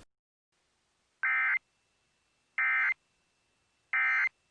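Emergency Alert System end-of-message signal: three short, identical bursts of SAME digital data tones, about 1.3 seconds apart, marking the end of the broadcast alert.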